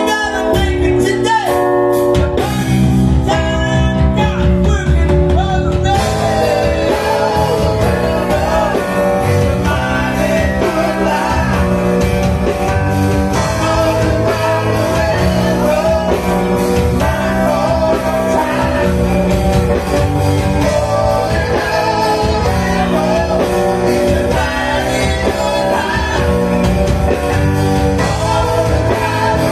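Live rock band playing: a man singing lead over bass guitar, drums and keyboards.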